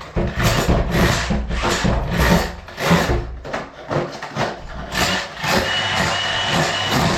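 Repeated scraping and chipping strokes of a tool against a concrete floor, about two to three a second, as set tile adhesive is cleared from the edges.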